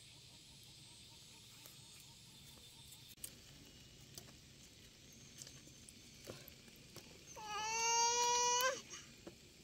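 A baby crying: one drawn-out, steady wail about a second and a half long, starting about seven seconds in, with only faint background noise before it.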